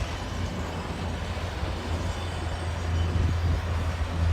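Propane-converted gasoline engine of a cranberry harvesting machine running steadily with a low hum, which grows louder near the end.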